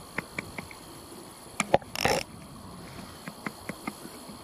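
Hands handling a spinning reel held close to the microphone: a run of light clicks and taps, with a sharper knock and a brief scrape about halfway through.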